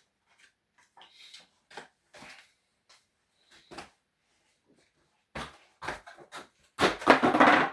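Packaging around a new bass guitar being handled: a few soft scattered rustles and taps, then louder, denser rustling of wrapping material over the last two seconds or so.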